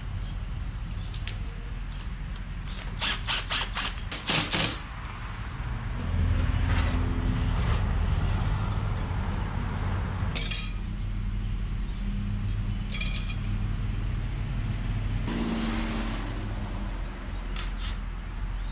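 Hand work on a car's charge piping: a quick run of sharp metal clicks and knocks about three to four and a half seconds in, then two short clicking bursts near the middle, over a steady low hum that swells twice.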